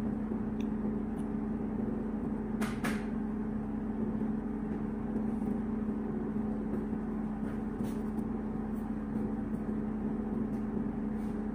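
Steady machine hum, with a few faint light ticks over it and a brief double click about three seconds in.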